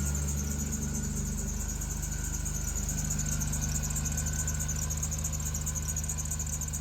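4.3L V6 engine idling steadily, with a faint steady squeal from the serpentine belt at the alternator pulley; cleaning the powder coating off the pulley has not cured the squeal.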